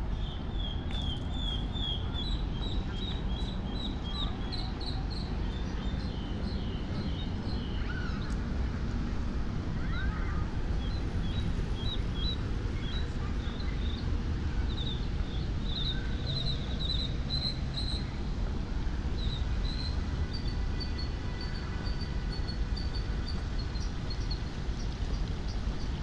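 Birds chirping in runs of quick, high notes, over a steady low rumble.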